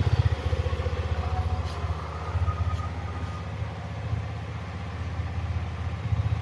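Hyosung GT650R's V-twin engine with its stock exhaust idling with a steady pulsing beat. It drops back from a higher, louder running speed about half a second in, and picks up slightly near the end.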